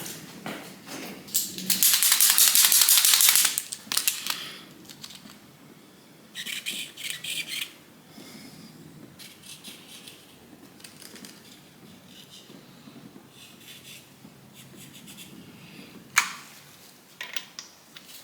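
Ratchet wrench clicking in quick bursts while bolts are turned out; the longest and loudest burst lasts about two seconds near the start, with shorter bursts after it and a sharp metal knock near the end.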